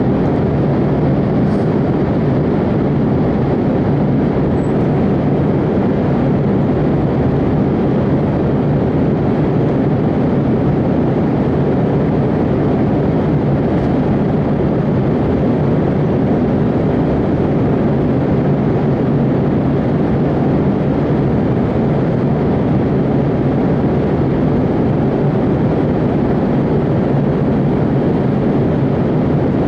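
Steady, loud roar of an airliner in flight, heard inside the passenger cabin: engine and airflow noise that holds even throughout.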